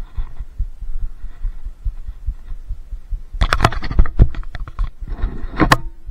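Handling and rubbing noise on a body-worn camera: dull uneven low thumps throughout. A little past halfway comes a burst of clattering and scraping, the loudest part, and a shorter scraping burst with a sharp click comes near the end.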